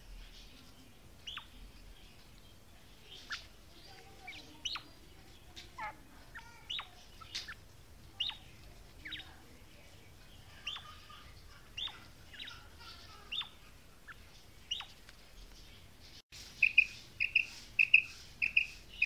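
Caged female quail calling: short, sharp notes that fall quickly in pitch, about one a second. Near the end, after a brief break, a louder, quicker run of calls follows, about three a second.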